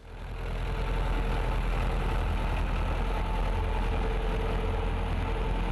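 Tractor engine running steadily, a low rumble with a steady hum, fading in over the first second.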